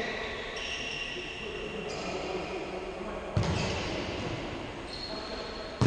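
Futsal ball struck on an indoor court with a sharp thud about three and a half seconds in and again at the end, echoing in a large sports hall, over high squeaks of shoes on the court and players' voices.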